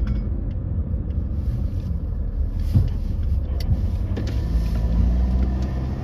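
Car driving along a road, heard from inside the cabin: a steady low rumble of engine and tyres, with a couple of light knocks near the middle.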